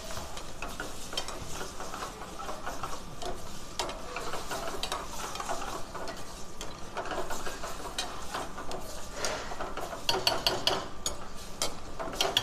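A steel ladle stirring and scraping thick tomato-cream gravy in a stainless steel frying pan, with several sharp clinks of the ladle against the pan near the end.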